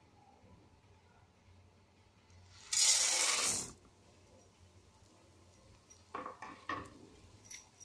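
Dry vermicelli poured into an empty aluminium pan: a dense rush of hard strands hitting the metal for about a second. A few short knocks follow near the end.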